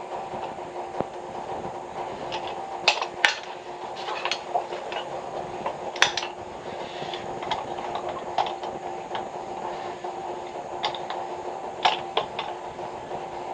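A steady mechanical hum, with scattered sharp clicks and clinks like small hard objects knocking together, loudest about three, six and twelve seconds in.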